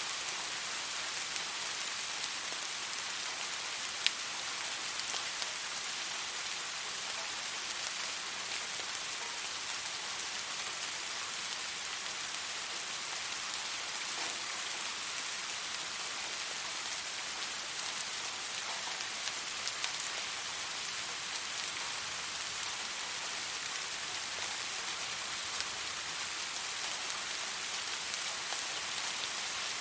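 Steady, gentle rain falling on a surface, an even hiss with scattered individual drop ticks and one sharper, louder drop about four seconds in.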